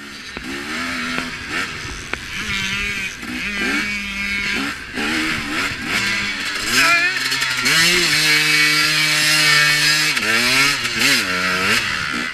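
KTM 250 XC two-stroke dirt bike engine under racing throttle, revving up and falling back again and again through the gears. It holds one steady pitch for about two seconds past the middle, then rises and falls quickly a few times near the end, with wind hissing over the camera throughout.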